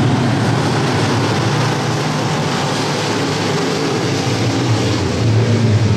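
Street stock race car engines running, a steady drone that dips a little midway and swells again near the end.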